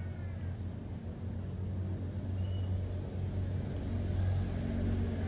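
A motor running with a steady low hum, a little louder about four seconds in, with a few faint chirps above it.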